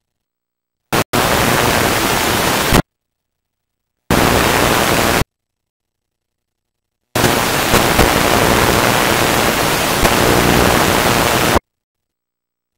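Loud hiss of static from a damaged videotape playing back, cutting in and out abruptly with dead silence between. A brief blip about a second in is followed by three bursts, the last and longest lasting about four seconds.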